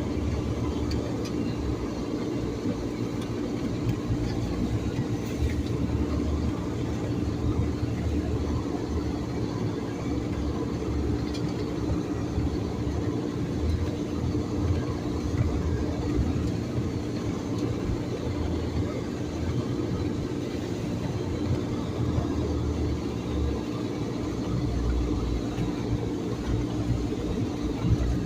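A vehicle driving over a rough, snow-covered dirt road: the engine runs with a steady hum over a continuous low rumble of tyres and suspension.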